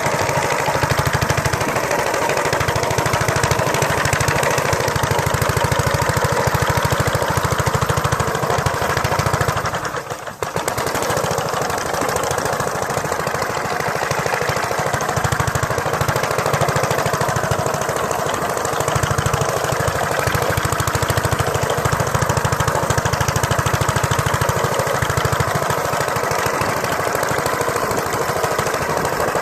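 Mayfield motor scythe's small engine running steadily with a rapid chattering beat, dipping briefly about ten seconds in before picking up again.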